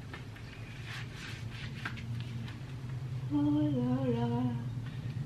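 A woman humming a few notes without words, starting about three seconds in. Under it runs a steady low background hum, with faint rustling before the humming.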